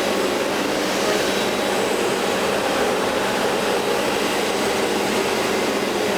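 Thomas Parkett Master XT washing vacuum cleaner running steadily on suction alone, its parquet nozzle sucking the dirty water back up off the floor and drying the parquet.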